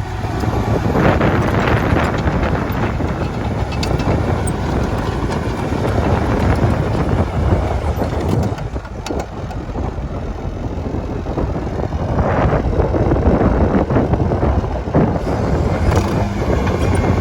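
Komatsu D51PX-22 bulldozer's diesel engine running loud and steady as the dozer works. The level dips for a few seconds about halfway through, then builds back up.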